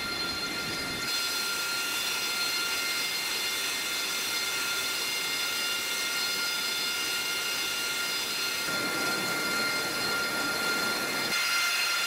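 Aircraft jet turbine engines running on a carrier flight deck: a steady high-pitched whine made of several held tones over a rushing noise.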